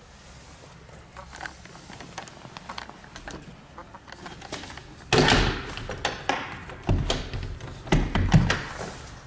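Sliding glass patio door moving along its track and closing with a thud about five seconds in, followed by further knocks and rattles.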